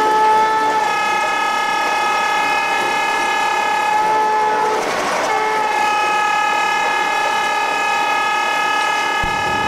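Electric locomotive shrieking: a loud, steady high-pitched tone heard from the cab over the rumble of the train running at speed. The shriek starts abruptly, breaks for about half a second with a brief rush of noise near the middle, then carries on steadily.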